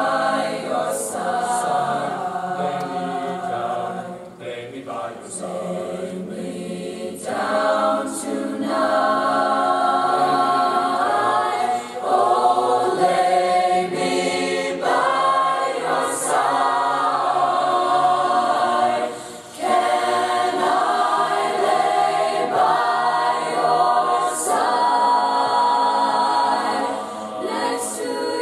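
Mixed-voice student choir singing a cappella in sustained chordal harmony, with brief breaks between phrases.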